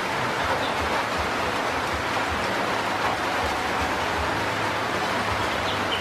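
Steady, even hiss of outdoor background noise, with a few faint high chirps, one near the end.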